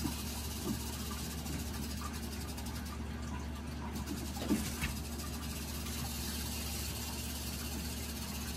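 Steady low background hum with a few faint, short knocks.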